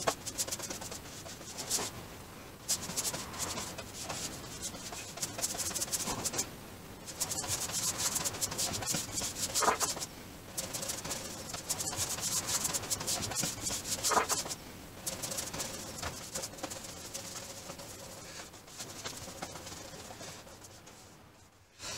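Bristle paintbrush spreading PVA glue across a flat tabletop in repeated back-and-forth strokes, a rough scrubbing rasp that eases off near the end.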